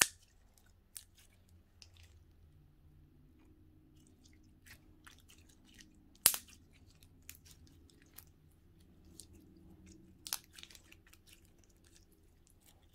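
Gooey, moist slime being squished and stretched by hand: sparse faint wet clicks and pops, a sharper pop about six seconds in and a cluster of them around ten seconds in.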